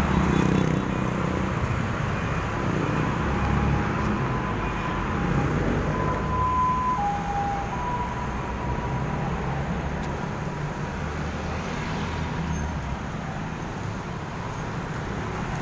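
Traffic on a multi-lane highway: a steady rumble of passing engines and tyres, with a few short high tones near the middle.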